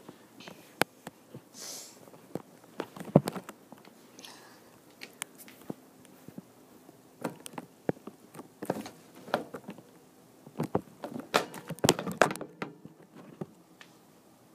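Scattered light clicks and taps, irregular, with a small cluster about three seconds in and a busier run from about nine to twelve seconds.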